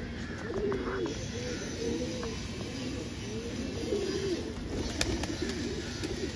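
Several domestic pigeons cooing close by, their coos overlapping and repeating. A sharp click comes about five seconds in.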